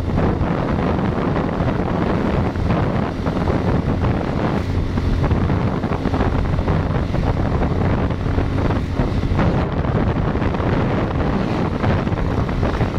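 Wind buffeting the microphone of a moving vehicle, a steady low rush with an engine drone underneath.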